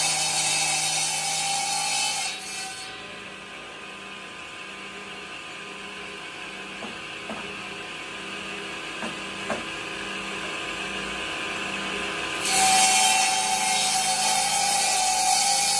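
Shop-built table saw ripping a wooden board with a loud, high whine, then running free between cuts with a steady hum and a few light knocks of wood. About twelve seconds in the blade bites into the next board and the loud cutting sound returns.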